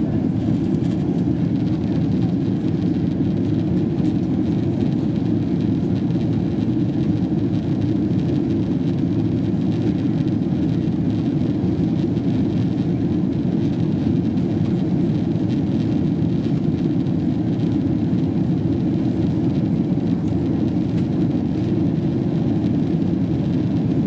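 Steady cabin noise inside a Boeing 777 airliner in flight: an even, deep rumble of the engines and the air rushing past the fuselage.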